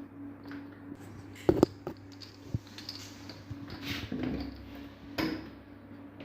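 Sharp clicks and knocks of hands working on small parts: a loud double click about a second and a half in, and single knocks later. A steady low hum runs underneath.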